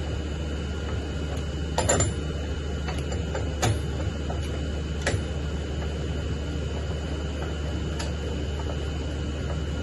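Steady low hum with a thin high tone, broken by about four light, sharp clicks spread over several seconds.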